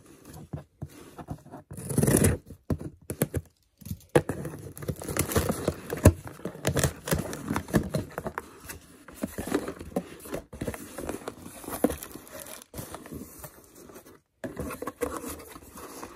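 Scissors cutting through packing tape on a cardboard shipping box, with a loud burst of scraping about two seconds in, then many short scrapes, clicks and rustles as the cardboard flaps are pulled open and the packing inside is handled.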